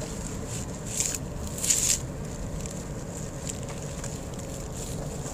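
Steady road and engine noise inside a moving car's cabin, with two short hisses about one and nearly two seconds in.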